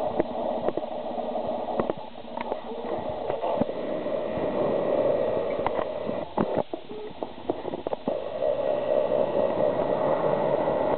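Rushing wind on the microphone of a moving skier, with skis scraping over chopped-up snow. Short knocks and clicks are scattered through it.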